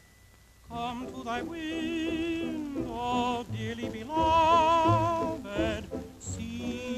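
A cartoon tomcat's singing voice, held notes with a wide vibrato over musical accompaniment, coming in about a second in after a near-silent pause.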